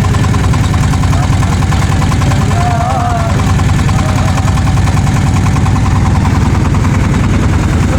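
An engine running steadily close by, with a fast, even beat throughout. A brief voice comes through it about three seconds in.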